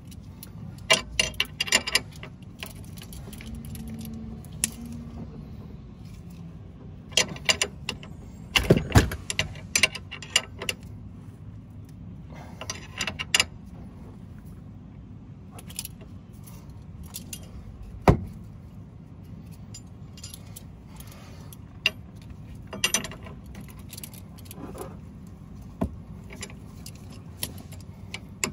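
Hand wrench clicking and clinking on the nut of a car's front stabilizer (sway bar) link as it is tightened, in short bursts of rapid metallic clicks with pauses between and one louder single clink about two-thirds of the way in.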